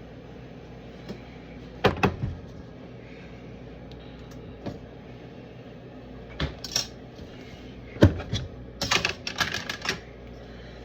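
Dishes and utensils knocking and clinking as food is handled in bowls: a couple of sharp knocks about two seconds in, a few more later, and a quick run of clatters near the end.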